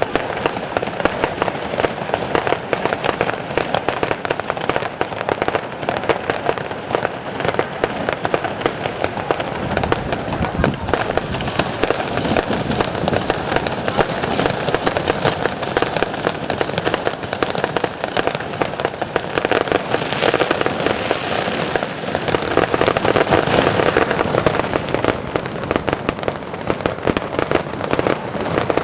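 Fireworks display: a dense, continuous barrage of bangs and crackling, growing a little louder about two-thirds of the way through.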